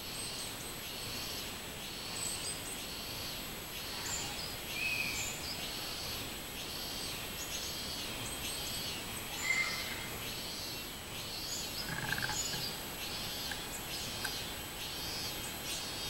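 Robust cicada (minmin-zemi, Hyalessa maculaticollis) singing its repeated pulsing 'min-min-min' song, a steady rhythm of about one and a half notes a second. A few short bird chirps are heard about a third of the way in, past the middle, and about three quarters through.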